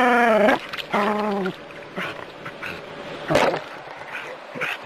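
Small terrier barking in two drawn-out, yelping barks at a snake in the water, then quieter, with a short splash about three and a half seconds in.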